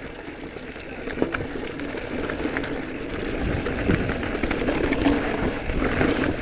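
Giant Trance E+ Pro 2 electric mountain bike rolling along a dirt singletrack: a steady rumble of tyres on dirt with scattered clicks and rattles from the bike, getting louder as it goes.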